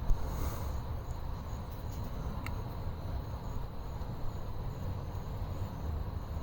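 Night-time ambience: crickets trilling faintly and steadily high up, over a low steady rumble, with one small click about two and a half seconds in.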